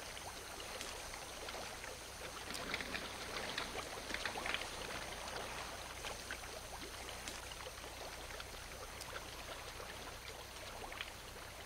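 Water boiling in a large cauldron over a wood fire: a faint steady bubbling hiss with scattered small pops, most of them between about two and five seconds in.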